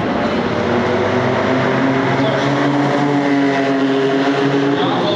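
Lamborghini Countach LP500 S's V12 engine accelerating hard past on the track, its note climbing steadily, then breaking off near the end as it shifts up a gear.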